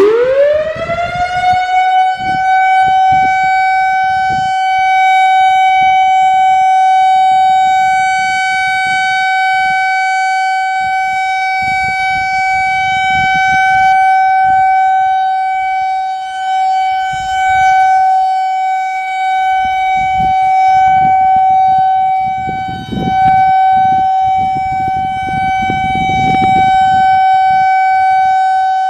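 Whelen 2000R/400R outdoor warning siren sounding a test: it starts up with a rising whine in the first couple of seconds, then holds one steady, loud tone that swells and fades by turns.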